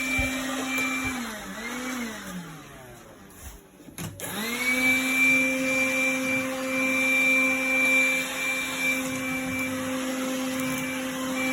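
Makita cordless vacuum cleaner motor running with a steady whine. It is switched off and briefly blipped on again about a second in, winds down, then is switched on again with a click about four seconds in and runs steadily.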